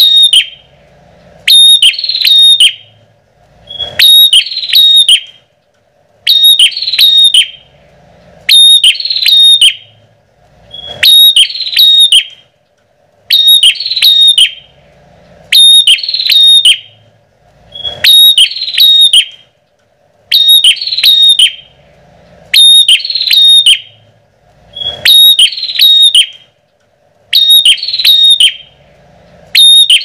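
Bar-winged prinia (prenjak) song used as a bird-trapping lure call: loud bursts of rapid, sharp, high chipping notes, each just over a second long, repeated about every two seconds.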